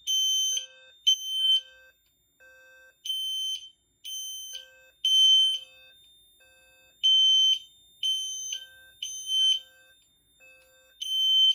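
System Sensor P2WL horn strobe sounding a high-pitched temporal-3 alarm: three half-second blasts, a longer pause, then repeating. Between the horn blasts a lower-pitched tone from the SPS-CWL speaker strobe beeps in its own groups of three, with a faint steady high whine underneath.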